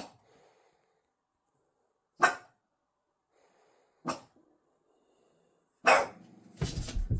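A dog barking: four single barks about two seconds apart.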